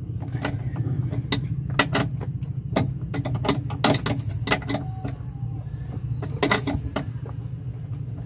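Ratchet wrench clicking in short, uneven strokes on a bolt of a clutch master cylinder, worked slowly in a tight space, over a steady low hum.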